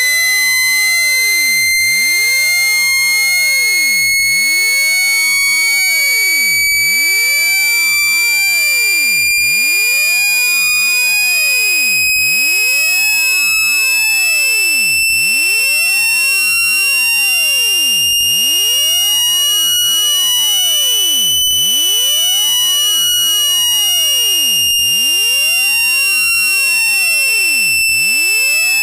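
A loud, harsh electronic test tone of a phone speaker-cleaning track, meant to be played at full volume to shake water and dust out of a phone speaker. The high tone glides slowly upward and then eases down a little over the last several seconds.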